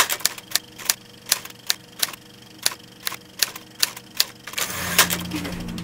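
Typewriter sound effect: single key strikes, about two or three a second, then the carriage sliding back near the end.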